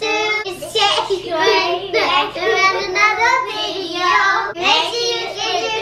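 Young children singing a sing-song greeting together in high voices, with hardly a break.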